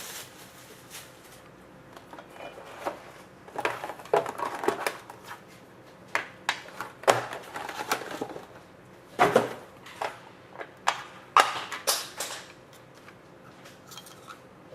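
A hockey card box and its packaging being torn open and handled: irregular crinkles, rips and small taps.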